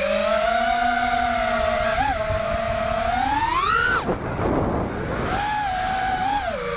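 Brushless motors and propellers of a 4-inch FPV freestyle quadcopter whining, the pitch swelling as the throttle is pushed up to a sharp peak about four seconds in. The whine then drops away into a whoosh of air as the throttle is chopped through a flip or roll, and picks up again steadier, wavering with small throttle blips.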